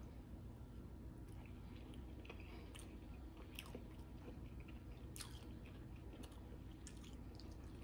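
A person chewing a mouthful of soft food, faint, with scattered small wet mouth clicks and smacks.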